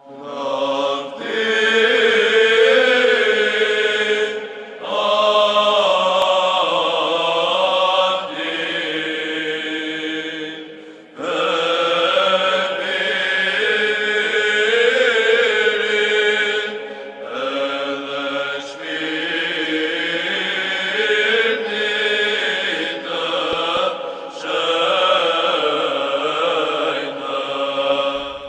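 Orthodox church chant sung by voices in long, held phrases, with brief breaks between phrases.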